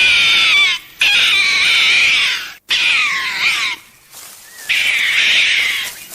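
An animal calling loudly four times in a row. Each call is high and wavering, several drop in pitch at the end, and the calls are separated by short pauses.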